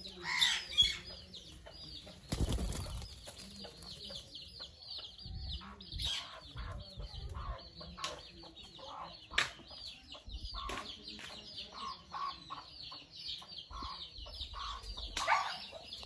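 A green parrot flapping its wings hard in irregular bursts, with a continuous run of quick, high chirps behind it.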